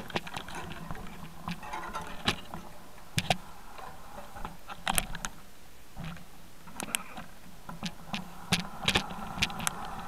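Irregular clicks, knocks and rattles over a steady hiss, typical of a mounted camera and riding gear jolting over a rocky, leaf-covered trail; the loudest knocks come a little after three seconds in, around five seconds, and near nine seconds.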